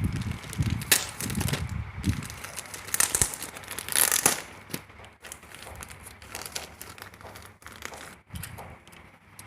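Crinkling and rustling of parcel packaging being handled and opened: irregular crackles, busiest in the first few seconds with a sharp burst about four seconds in, then thinning out.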